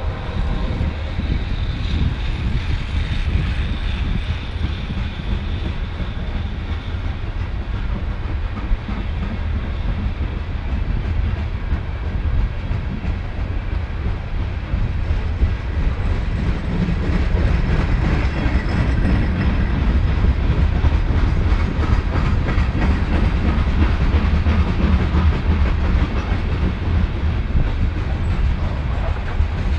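A BNSF train rolling past, a steady heavy rumble with the clickety-clack of wheels over the rail joints. It grows louder a little past halfway.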